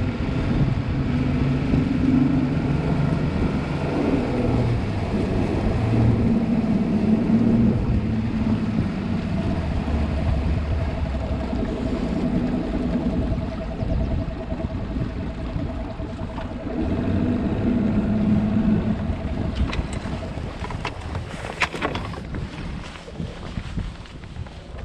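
Bass boat outboard motor running at low speed, a steady low rumble with wind and water noise. Near the end the motor drops off and a few knocks sound from feet on the deck.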